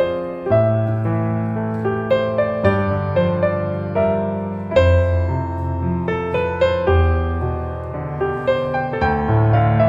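Background piano music: a slow piece with a melody of short notes over held bass notes that change about every two seconds.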